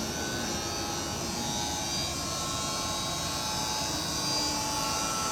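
Small electric stone-polishing machine running steadily, used to polish black opal.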